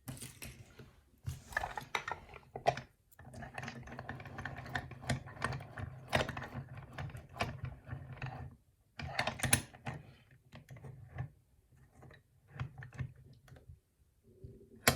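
Challenge lock being handled and turned over: bursts of small metallic clicks and rattles, with a long run of rapid clicking in the middle and a sharp click at the very end.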